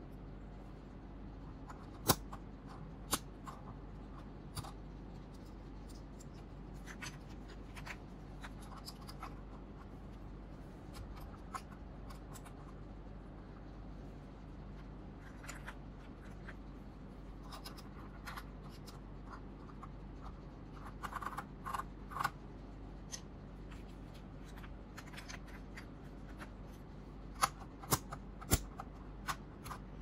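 Plastic keycaps of a mechanical keyboard being pulled off, handled and set down on a desk: scattered light clicks and taps, a short cluster about two-thirds of the way through and three sharp clicks near the end, over a steady low hum.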